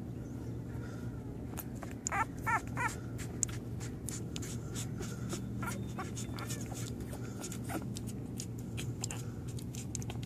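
Newborn pit bull puppies squeaking and whimpering: three quick, high squeaks about two seconds in, then a few fainter ones, over soft clicking and shuffling as the litter nurses. A steady low hum runs underneath.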